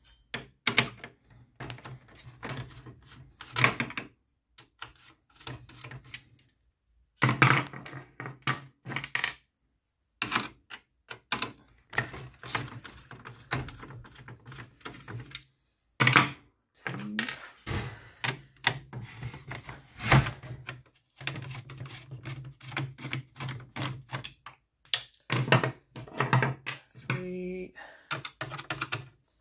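Screwdriver turning out small screws from a Land Rover Discovery 4 plastic centre console, with irregular clicks, taps and knocks as the console and its trim pieces are handled. The sounds come in uneven bursts with short silent breaks.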